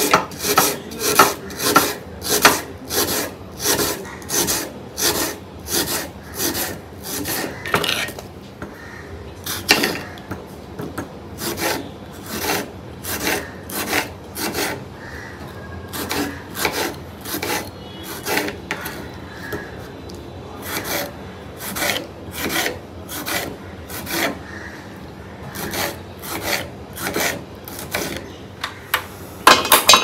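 Repeated rasping, scraping strokes, about two a second, broken by a couple of brief pauses.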